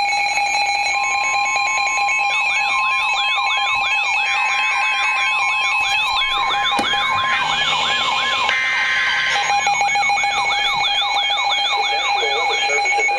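Weather alert radios sounding their alarms together: a siren alert sweeps quickly up and down about two and a half times a second over steady held tones. Under them runs NOAA Weather Radio's 1050 Hz warning alarm tone, which stops about nine and a half seconds in. The owner says the Reecom and Midland 74-200 receivers froze up, leaving their alerts stuck on.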